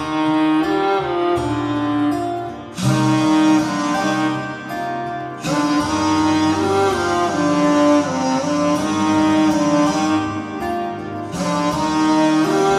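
Instrumental intro of a slowed, reverb-heavy Punjabi pop song: sustained melodic notes that fill out suddenly about three seconds in.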